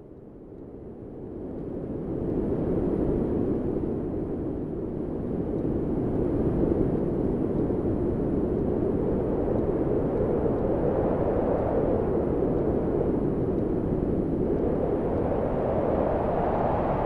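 A steady, low rumbling roar of noise that swells up over the first two seconds and then holds.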